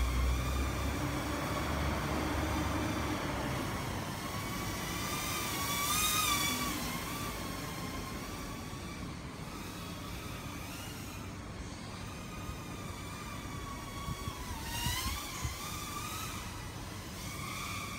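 Small FPV quadcopter's electric motors and propellers whining, the pitch wavering up and down with the throttle and rising about six seconds in and again near fifteen seconds.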